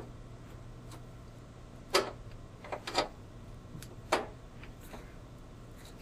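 A few sharp metallic clicks and taps, about four strong ones a second or so apart, of small screws and a screwdriver against the sheet-metal control panel of an old Maytag washing machine as the panel screws are put back in.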